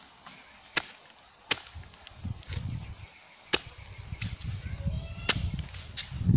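A chopping blade striking the fibrous trunk of a polod palm (Arenga undulatifolia) as it is hacked open for its palm heart: four sharp chops at uneven spacing and a couple of lighter ones.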